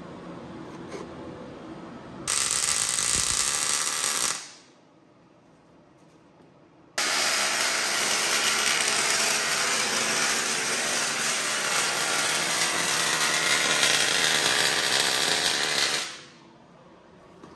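Arc welding a steel suspension mount onto a vehicle chassis rail: two runs of steady hissing, a short one about two seconds in and a longer one of about nine seconds starting near seven seconds, each starting and stopping abruptly.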